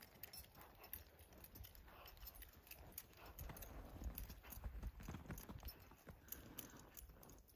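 Faint, irregular footfalls of a Percheron–Standardbred cross draft mare walking through deep snow, with a light clinking of her harness chains.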